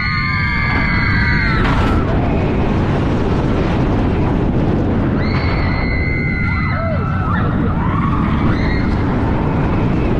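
Roller coaster ride: a loud, steady rush of wind on the microphone as the train drops and banks. Riders scream for about the first two seconds and again about five seconds in.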